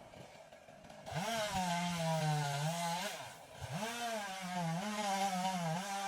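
Two-stroke chainsaw revving up about a second in and running at high revs, its pitch wavering. It drops off briefly around three seconds in, then revs up again.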